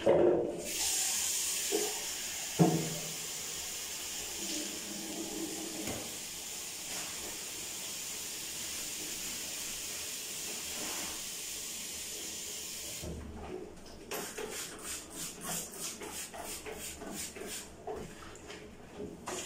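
Bathroom washbasin tap running steadily with a hiss of water, shut off about thirteen seconds in. After it comes a quick run of short swishing strokes, a few a second.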